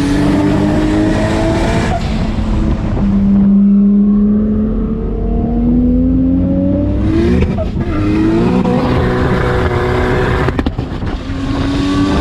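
Holden VL Commodore's turbocharged Nissan RB26DETT straight-six, running on E85, under hard acceleration. Its pitch climbs with the revs and drops back sharply at gear changes, about three times.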